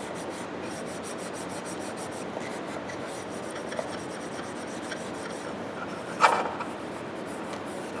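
Small blued steel ratchet parts being rubbed down by hand with 4/0 steel wool, a steady scratchy rubbing, with one brief knock about six seconds in.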